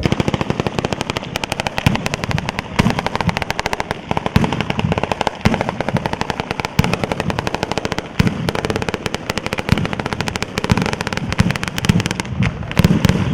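San Severo-style daytime firework batteria: long chains of firecrackers bursting on the ground in a rapid, unbroken run of sharp cracks, many a second, with heavier bangs scattered through.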